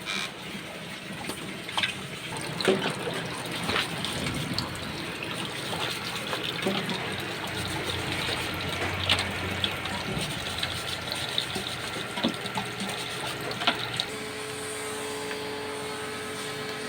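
Water running and splashing in a washing machine tub, with scattered sharp knocks. About fourteen seconds in, a steady electric motor hum starts.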